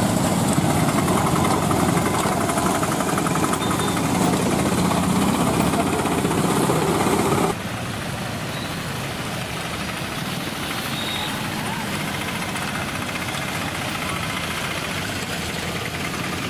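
Engine running steadily with a rapid putter. About seven and a half seconds in it cuts off sharply to a quieter, different engine sound.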